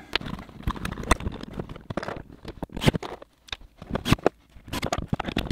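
Irregular clicks, taps and scrapes of hand work: a plastic USB charger outlet being pushed into its wall box and fastened with a small cordless screwdriver.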